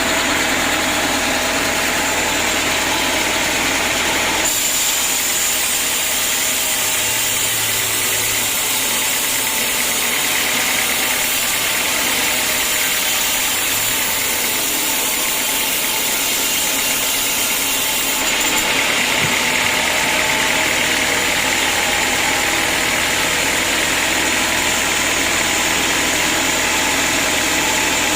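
Sawmill saw and machinery running steadily, a loud dense mechanical noise with a strong high hiss. The sound changes abruptly about four and a half seconds in and again about eighteen seconds in.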